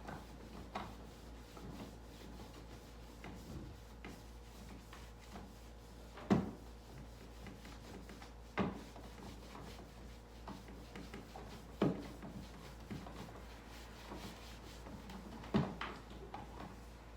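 Objects being handled: four sharp knocks or clunks a few seconds apart, with smaller taps and rubbing between them over a low steady hum.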